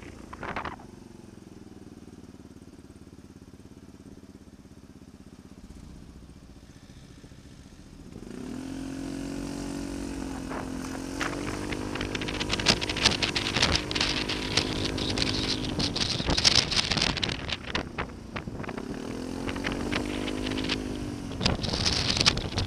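Motorcycle engine running at low revs, then pulling away about eight seconds in, its note rising and holding before easing off and rising again near the end. Wind noise on the microphone grows as speed builds.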